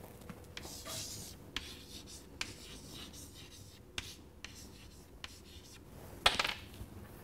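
Chalk scratching and tapping faintly on a chalkboard as a word is written, with a brief louder scrape about six seconds in.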